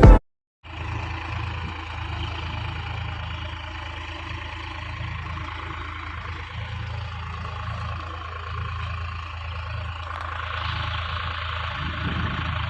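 Tractor engine running steadily, its sound growing louder and brighter about ten seconds in. Music cuts off just before it starts.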